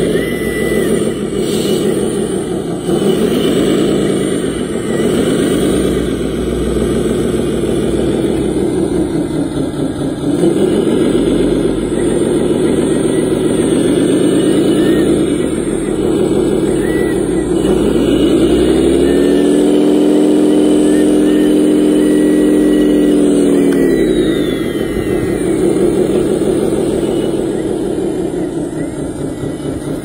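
Motor of a radio-controlled model wheel loader running while it drives and pushes dirt, its pitch rising and falling again and again. Past the middle it holds at a steady high pitch for about five seconds, then drops.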